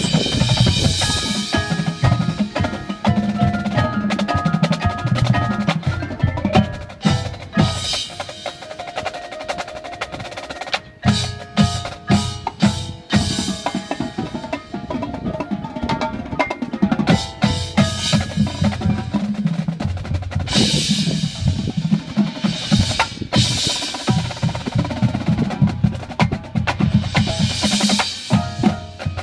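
A drumline and front ensemble performing: snare, tenor and bass drums play fast rhythms and rolls over pitched marimba and keyboard parts. Several bright cymbal swells build and fade, and a run of sharp unison hits comes about eleven to thirteen seconds in.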